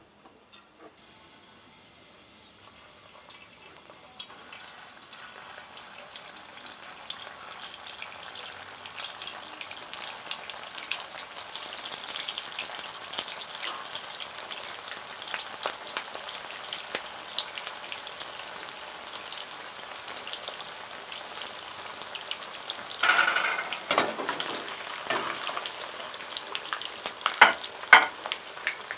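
Pieces of food frying in hot oil in a metal pan: a dense crackling sizzle that builds over the first several seconds and then holds steady. Near the end there are louder bursts of crackling and clicks as a slotted skimmer stirs and turns the pieces.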